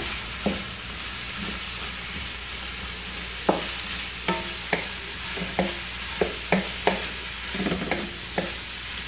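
Vegetables and chicken sizzling in oil in a large wok while a spatula stir-fries them. The spatula knocks and scrapes against the pan about a dozen times, more often from a few seconds in.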